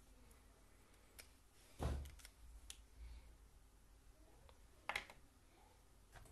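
Faint handling noises on a desk: a few scattered light clicks and a soft thud about two seconds in, with the sharpest click about five seconds in, as pens and small items are picked up and put down.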